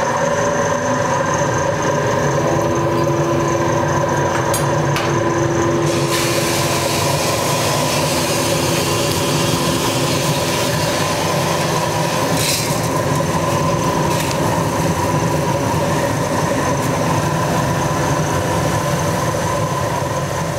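Drum coffee roaster running with a steady hum as a finished roast is dropped from the drum into the cooling tray. A few clicks come first, then about six seconds in a loud rushing noise of beans pouring into the tray sets in, as the batch is air-cooled.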